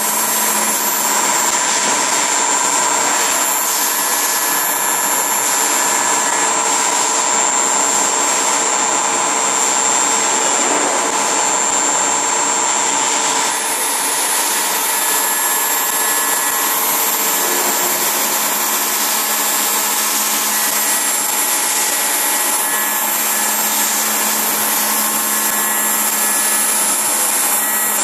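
CNC key-milling machine running, its twin high-speed spindles giving a loud, steady whine of several held tones over a hiss.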